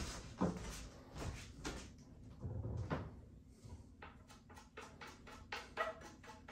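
A few scattered knocks and clunks, then rhythmic percussive music with a quick clicking beat and pitched notes begins about four seconds in.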